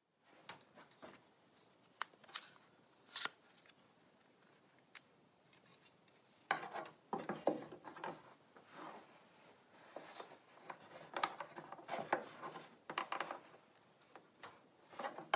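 Sliding bevel gauge being handled and set against the wooden stem and plank of a skiff: a few sharp clicks of its metal blade, then repeated short scrapes and rubs of the gauge on the wood.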